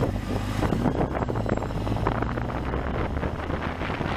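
Motorcycle engine running steadily under way, with wind buffeting the microphone.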